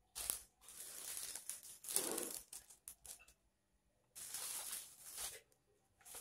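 Brown paper food wrapping rustling and crinkling as it is handled and folded, in two main spells: from about half a second in to near the three-second mark, and again around four to five seconds.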